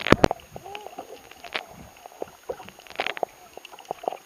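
Sound picked up by a camera held under water: sloshing and bubbling with sharp knocks and clicks, loudest just after the start and about a second and a half and three seconds in.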